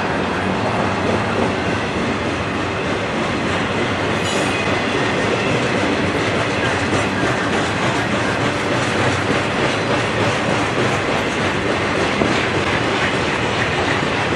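Double-stack intermodal container well cars rolling past on the rails, a steady rumble with wheel clatter over the rail joints.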